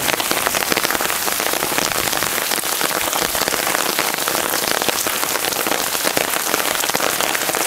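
Heavy rain pouring down: a loud, steady hiss made up of many sharp drop impacts.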